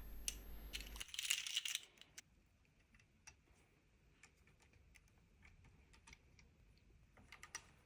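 Small plastic LEGO pieces clicking and clattering as they are handled and pressed together: a busy patch of clicks and rustle at the start, then sparse light clicks, with a few more near the end.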